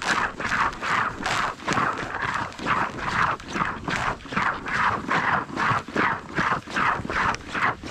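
Footsteps crunching on the lake ice, an even walking pace of about two and a half steps a second.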